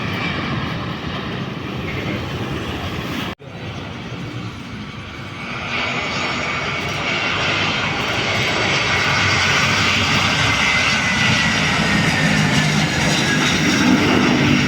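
Jet airliner's engines passing, growing louder from about six seconds in, with a high whine slowly falling in pitch. The sound cuts out briefly a little over three seconds in.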